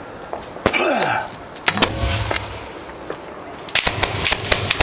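Fireworks mortars firing and shells bursting close by: a sharp crack about two-thirds of a second in, a heavier low thump around two seconds, then a rapid string of cracks near the end.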